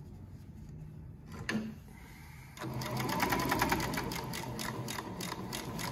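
Yamata FY-335A walking-foot cylinder-bed industrial sewing machine stitching through several layers of denim. It starts about halfway through and runs as a rapid, even train of needle strokes. A single click comes shortly before it starts.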